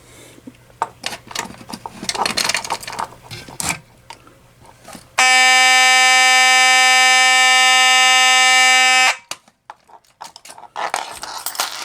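Simplex 4903-9101 mechanical fire alarm horn sounding one continuous, steady buzzing blast for about four seconds, starting about five seconds in and cutting off suddenly. Before and after it, irregular clattering and clicking from handling of the equipment.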